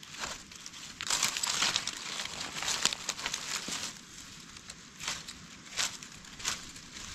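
Dry leaf litter rustling and crackling as a knife digs and prises mushrooms out of the forest floor. The rustling is dense for the first few seconds, then breaks into a few separate crackles.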